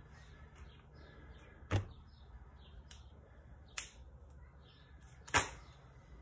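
Leather nail-bending wraps being unwound from a freshly bent steel nail, with three sharp clicks about two seconds apart, the last the loudest.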